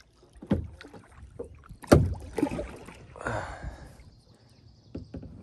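Hollow knocks and bumps on a fishing kayak's hull, the loudest about two seconds in, followed by a short rushing water sound a little after three seconds.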